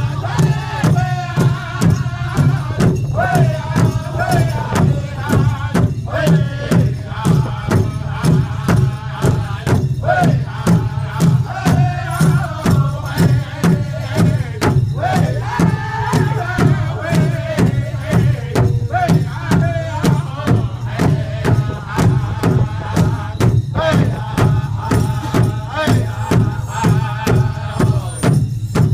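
Powwow drum group: a large drum struck by several drummers in a steady, even beat, with the group singing together over it.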